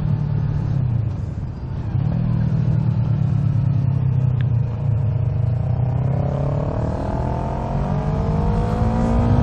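Sport motorcycle engine running under way. It eases briefly about a second and a half in, then its pitch climbs steadily from about six seconds as the bike accelerates.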